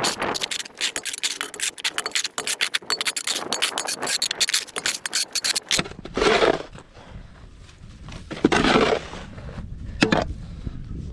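Shovel scooping wet, sticky snow out of a cattle feed bunk. A dense run of quick crunching scrapes gives way to two longer scrapes a couple of seconds apart, with a sharp knock near the end.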